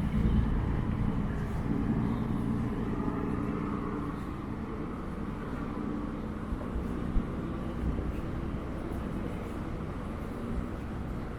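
A motor engine running low and steady, loudest at first and fading away over the first five or six seconds, over outdoor background noise. A single short tap about seven seconds in.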